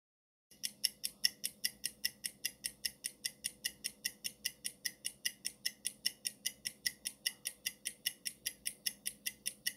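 Countdown-timer sound effect: quick, even clock-like ticking, a little over four ticks a second, starting about half a second in.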